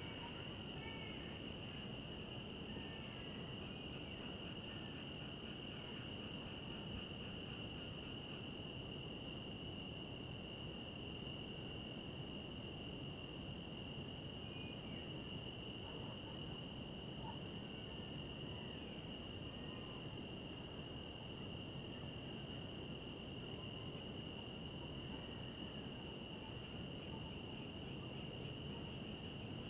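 Crickets trilling without a break on one high note, over a low steady hiss.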